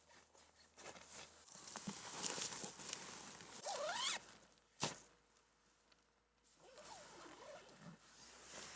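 Quiet rustling of tent fabric and bedding as someone moves inside a small tent, with a quick rising zip a little before halfway, then a single sharp click just after. Fainter rustling returns near the end.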